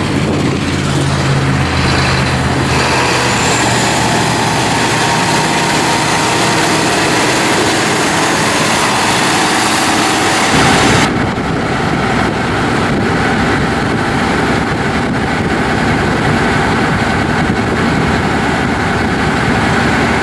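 John Deere 7820's turbocharged six-cylinder diesel engine running steadily as the tractor moves about. About eleven seconds in, the sound changes abruptly to a rougher, deeper rumble.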